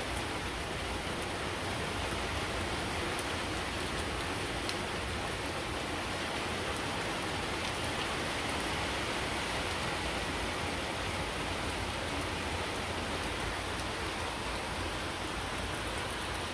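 Steady rain falling: an even hiss with a few sharp ticks of single drops.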